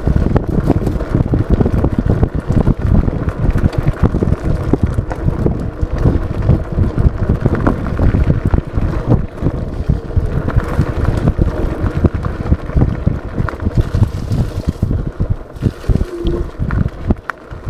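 Wind buffeting the action camera's microphone over the rumble of an off-road electric scooter riding a bumpy dirt path, with many short knocks and rattles as it goes over the bumps.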